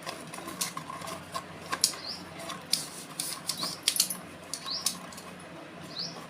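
Plastic clicks and knocks from a selfie stick tripod being handled and adjusted, with short, high, rising squeaks recurring every second or so.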